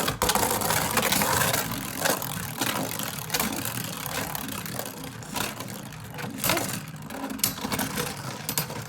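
Two Beyblade Burst spinning tops, Wonder Valtryek V4 and Z Achilles A4 in battling mode, whirring in a plastic Beystadium and clashing with repeated sharp clacks. The spinning and collisions are loudest at first and gradually die down as the tops lose speed.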